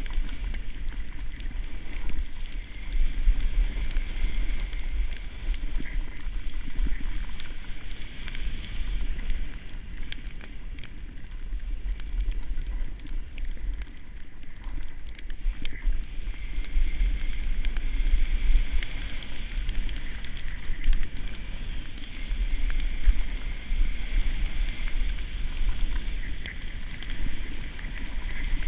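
Wind buffeting an action camera's microphone during a fast downhill snowboard run, a steady deep rumble, with the hiss of a snowboard sliding and carving over snow. The hiss eases for a few seconds mid-run and builds again toward the end.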